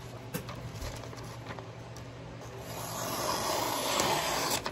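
High-carbon steel knife blade slicing through a sheet of lined paper in a sharpness test: a papery hiss that swells over about a second and a half and cuts off suddenly near the end. Light paper handling ticks come before it.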